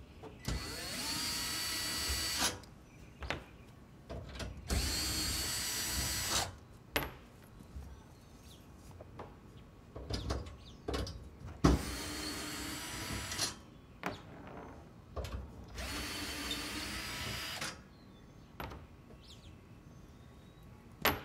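Cordless drill-driver backing out the four screws that hold the top brackets of an IBC tote's steel cage. Four runs of motor whine, each about two seconds, with clicks and knocks from the screws and brackets between them.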